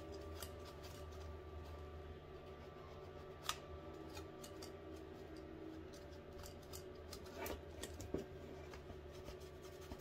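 Faint rubbing and small scattered clicks of a paper towel wiping a freshly soldered circuit board clean with alcohol, with a sharper click about three and a half seconds in and a few more near eight seconds, over a steady low hum.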